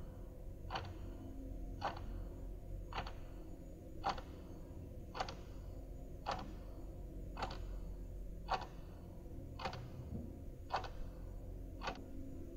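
A clock ticking steadily, a little under once a second, with alternate ticks slightly stronger, over a faint steady hum.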